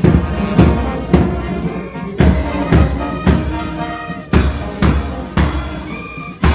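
Military brass band playing a march, a bass drum beating about twice a second under held brass chords.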